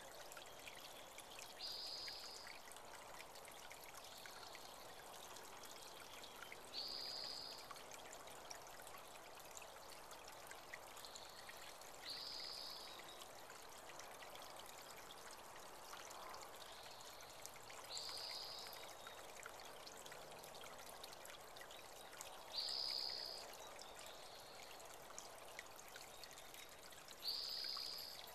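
Water of a small spring-fed creek trickling steadily, faint. Over it a bird repeats a short high call about every five seconds, six times, with fainter high notes in between.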